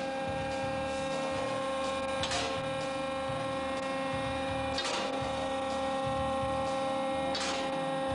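Steady electric hum and whine of a garage car lift's motor running, over a low uneven rumble, with a short rushing noise about every two and a half seconds.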